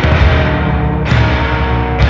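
Background rock music with guitar, steady drums and a strike about once a second.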